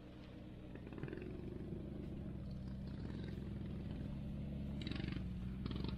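Yamaha Grizzly 600 ATV's single-cylinder engine running at low speed, a steady low hum that grows gradually louder.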